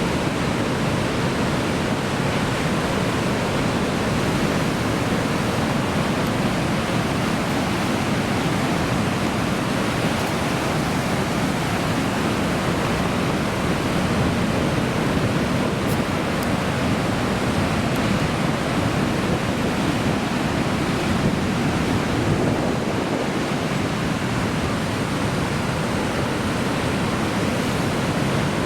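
Heavy surf from Typhoon Haishen's swell breaking on a rocky coast: a steady, loud rushing wash of water with no separate crashes standing out.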